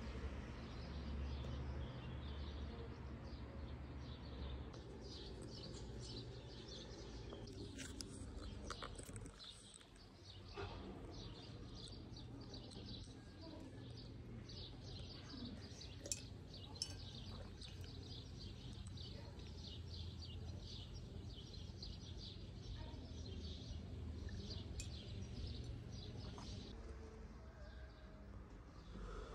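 Outdoor ambience of small birds chirping over and over, high and short, above a steady low rumble.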